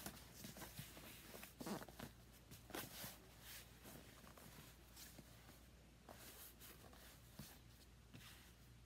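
Faint handling noise from a cardboard box being turned over and held: fingers and sleeves rubbing and scraping on the cardboard, with a few short knocks, the loudest about two and three seconds in.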